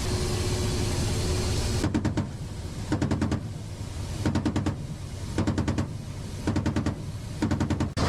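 M2 .50-caliber heavy machine gun firing about six short bursts of several rapid rounds each, roughly a second apart, starting about two seconds in. A steady low rumble runs underneath.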